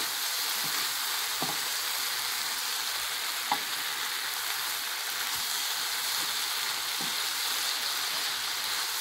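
Stir-frying: tofu cubes, onions and bell peppers sizzling with a steady hiss in a frying pan while a wooden spoon stirs them.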